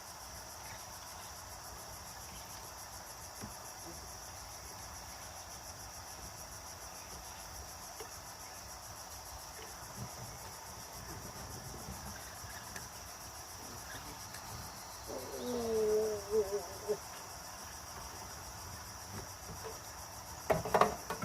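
Insects chirring in a steady, high, even drone. A short pitched sound comes about fifteen seconds in, and a few knocks near the end.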